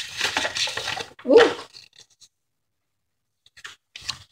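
Packaging being handled and rustling, with a short voiced 'hm'-like sound about a second and a half in, then silence broken by a few faint clicks near the end.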